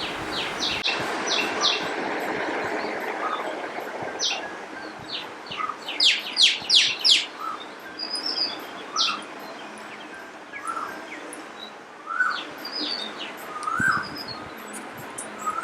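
Parrots calling: repeated short, sharp screeches, coming in a quick loud run about six to seven seconds in, with softer chirps between them over a steady outdoor hum.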